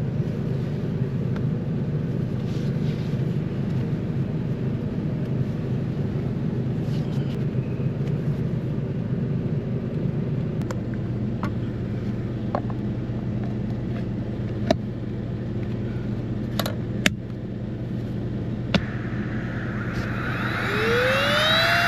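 Portable gas inverter generator running with a steady low hum, with a few sharp clicks in the second half. About a second before the end, a rising whine that then holds steady starts up, along with a loud hiss.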